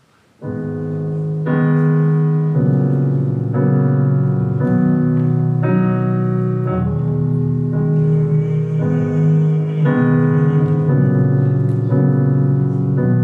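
Solo piano song introduction: slow sustained chords, each held for about a second before the next, starting about half a second in.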